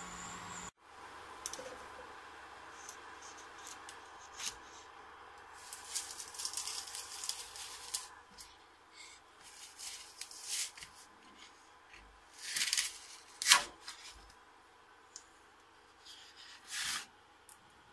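A 3D printer runs steadily for a moment, then cuts off. After that, a thin one-layer printed plastic sheet is handled and peeled off the print bed, giving irregular crinkling and scraping rustles, loudest about 13 seconds in and again near the end.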